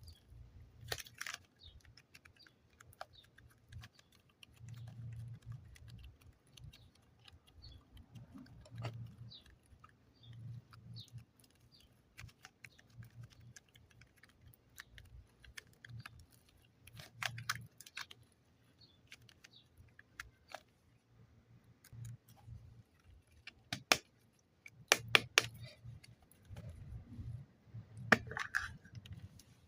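Close-up handling of modelling clay and its packaging: scattered sharp clicks and snaps with soft taps and rustles between them, the loudest cluster of clicks coming a little past three-quarters of the way through.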